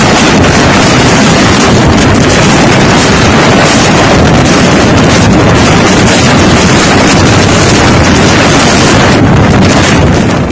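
Blizzard wind blasting over a phone microphone: a loud, steady rush of wind noise that buffets the mic close to its limit.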